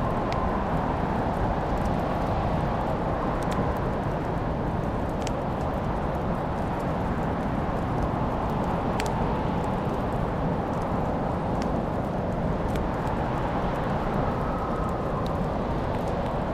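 Fireplace fire crackling, with sparse sharp pops and snaps about once a second over a steady low rushing background.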